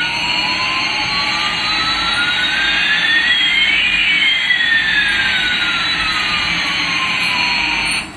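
Electronic jet-engine sound effect from a toy Airbus A380 airliner's sound chip: a steady hiss with one tone rising slowly while another falls, the two crossing about halfway through, then cutting off abruptly at the end.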